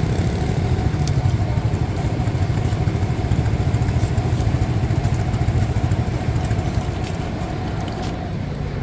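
Steady low rumble of motor vehicle engines from road traffic.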